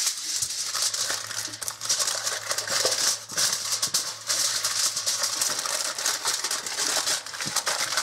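Aluminum foil crinkling and rustling unevenly as it is folded and crumpled by hand around a baked potato.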